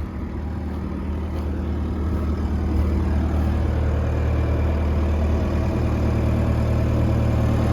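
Diesel engine of a Case TV370 tracked compact loader running steadily at idle, growing louder over the first few seconds and then holding even.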